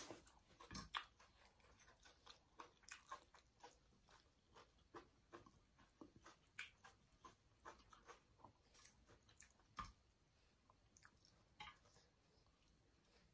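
Faint close-up chewing of Thai glass noodle salad: many small, irregular crunches and wet mouth clicks, with a louder crunch just after the start and another near ten seconds in.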